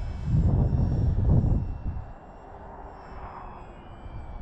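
Twin electric motors and propellers of an RC Grumman HU-16 Albatross flying boat, an Avios foam model, whining steadily as it flies overhead, the pitch sliding down near the end. A loud low rumble fills the first two seconds.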